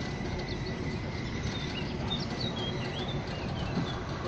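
Small birds chirping and singing in short rising and falling whistles, over a steady low rumble.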